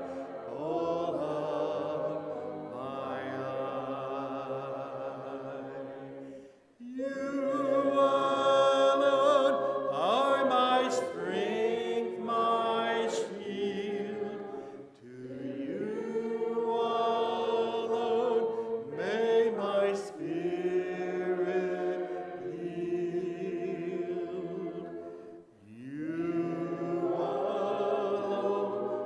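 A cappella hymn singing led by a man's voice, with no instruments, in slow, long-held phrases and a short breath between lines.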